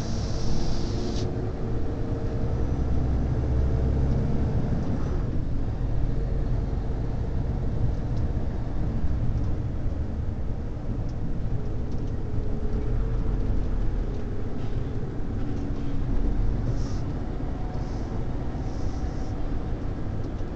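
Lorry cab interior: the engine and road noise as a steady low rumble while the truck rolls slowly. A high hiss at the start cuts off suddenly about a second in.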